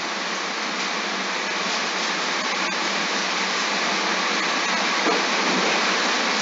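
Steady rushing hiss with no pitch or rhythm, slowly getting a little louder.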